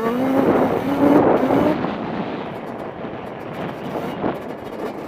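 Yamaha Banshee quad's twin-cylinder two-stroke engine under throttle, its note climbing in pitch in short rising steps. About two seconds in it drops to a quieter, rougher note as the rider eases off.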